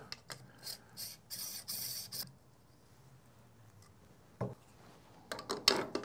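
Espresso tamper pressing and scraping against ground coffee in a portafilter on a tamping station: a few short rasping strokes over the first two seconds, then a single knock and a quick cluster of metal clacks near the end.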